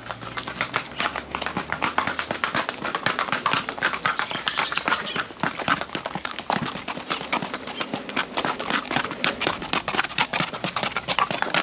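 Colombian Paso Fino horse's hooves striking paving and hard ground in quick, even succession as she is ridden at her gait.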